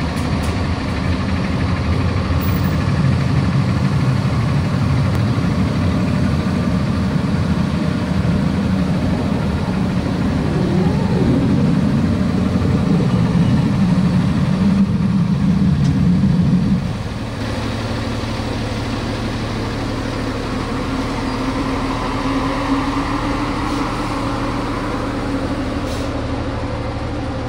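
KME fire engine's diesel engine idling steadily; its sound drops somewhat about two-thirds of the way through, then runs on evenly.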